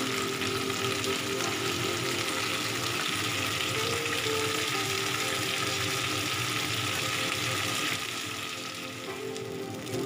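Chicken wings frying in hot oil in a pan: a steady sizzle that drops a little near the end.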